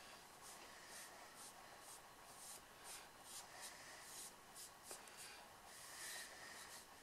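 Faint, repeated strokes of a flat brush rubbing soft pastel into the paper to blend it, about two strokes a second.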